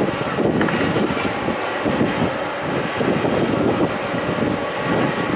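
Jet aircraft engines heard across an airport apron: a steady, loud rushing noise, fluttering irregularly, with the most energy low down.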